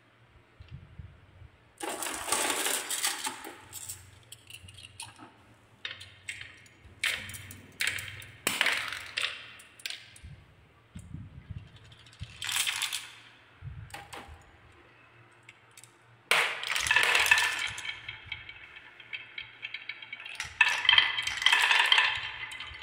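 Glass marbles rolling and clattering down wooden marble-run tracks, with bursts of clicks and glassy clinks as they knock against the wood and each other. The clatter thickens into a dense, ringing run twice near the end.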